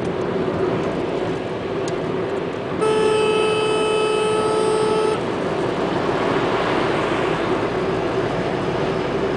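Steady road and engine noise inside a car's cabin at highway speed, with one long, steady vehicle horn blast of about two seconds starting nearly three seconds in.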